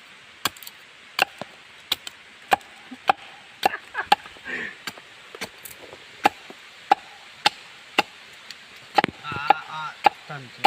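Wood being chopped by hand: sharp, regular blows of a blade biting into a log, about one every two-thirds of a second.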